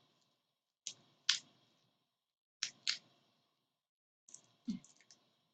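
Taped cardboard-and-plastic toy-kit packaging being worked open by hand: sharp clicks and snaps coming in pairs, then a few lighter clicks near the end.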